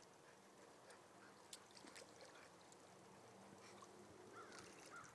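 Near silence: faint outdoor background with a few soft ticks and faint short high chirps near the end.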